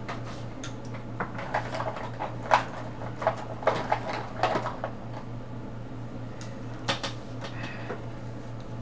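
Coloring utensils being handled and set down: a run of light clicks and clatters for a few seconds, then another click near the end, over a steady low hum.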